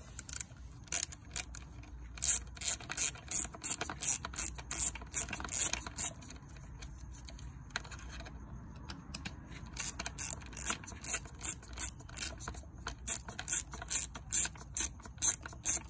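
Right-angle ratchet clicking in steady strokes, about three clicks a second, backing out a bracket bolt that is coming loose. The clicking pauses briefly about halfway, then resumes.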